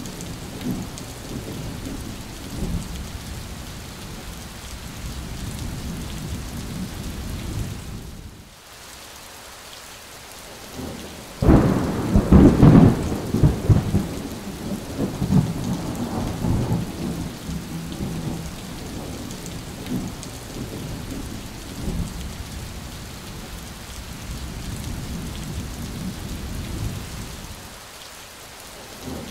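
Heavy rain falling steadily in a thunderstorm. The rain dips quieter for a couple of seconds, then a loud clap of thunder breaks in about a third of the way through and rolls on for several seconds.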